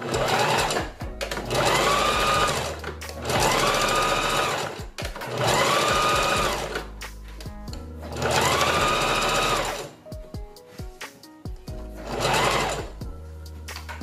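Electric sewing machine stitching hair wefts onto a wig cap in short runs: four runs of a couple of seconds each and a brief one near the end, its motor whine rising in pitch as it speeds up, holding steady, then stopping.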